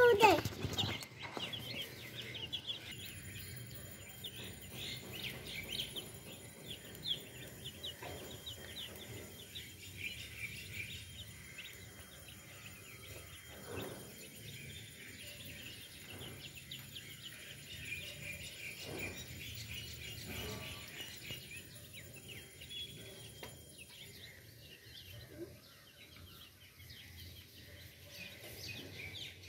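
Young chicks peeping: many short, high peeps overlapping in a steady, busy chorus.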